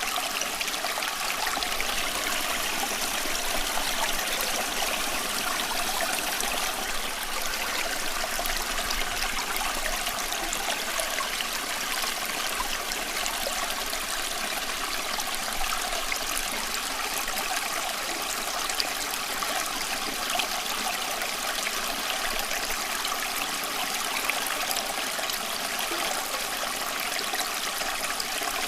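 Running water, a steady stream-like trickling and babbling that goes on without a break or change, bright and hissy with little low rumble.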